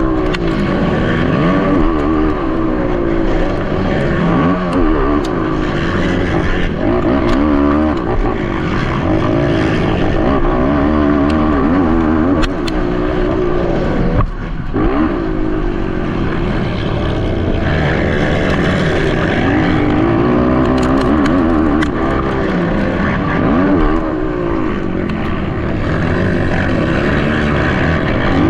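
Motocross racing ATV engines, their revs rising and falling again and again as they are throttled up and backed off, with a brief drop about halfway through.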